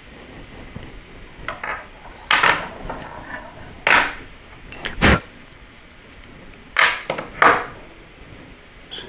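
Metal machine parts, steel guide rods and small aluminium plates and blocks for a CNC router's Z-axis, being handled and set down on a workbench. The result is a series of sharp clinks and knocks at irregular intervals, some with a short metallic ring.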